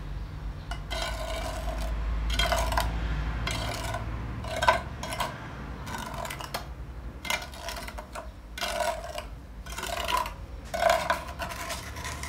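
Wet cement render being scraped and rubbed over the inside wall of a cement bonsai pot, in irregular strokes about once a second.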